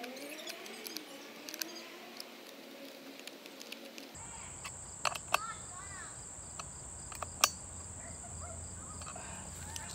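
A few sharp metallic clicks of an adjustable wrench working the nuts on a cart axle, over a steady high insect buzz that comes in about four seconds in. Before that there is a faint hum gliding in pitch.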